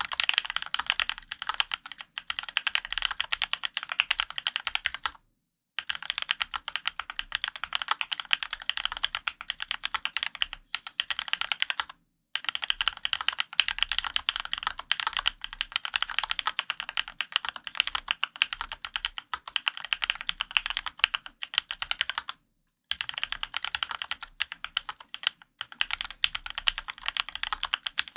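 Continuous fast typing on a Dolphin 2021 custom mechanical keyboard with Krytox-lubed Gateron Yellow Pro linear switches, an aluminum plate and CRP keycaps: a dense run of keystroke clacks, broken by three brief pauses.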